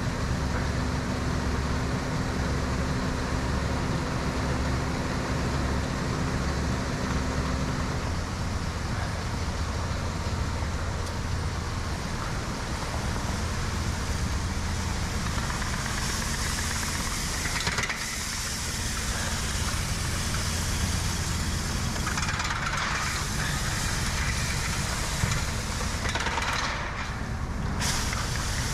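An engine running steadily with a low hum, its pitch shifting slightly about eight seconds in, and stretches of hiss over it in the second half.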